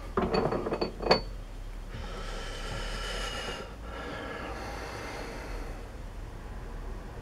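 Small metal parts clink together a few times, then a high machine whine with several tones sounds for about four seconds, breaking briefly partway through and sagging slightly in pitch before it fades.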